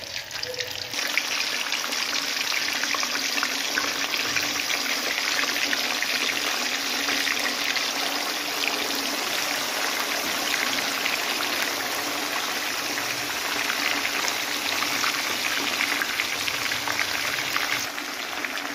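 Fish pieces wet with a yogurt-and-lemon marinade deep-frying in hot oil in a karahi: a steady, dense sizzle and crackle as the moisture boils off. It grows fuller about a second in.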